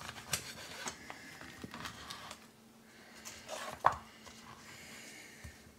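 Knife slicing between the bones of a rack of smoked baby back ribs, with light knocks of the blade on a wooden cutting board, then one sharp knock about four seconds in as the ribs are handled on the board. A faint steady hum runs underneath.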